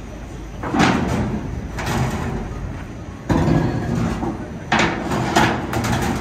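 About six sudden metallic clanks and knocks, some close together, from work on a car-carrier rail wagon as cars are secured on the deck, over a low steady rumble.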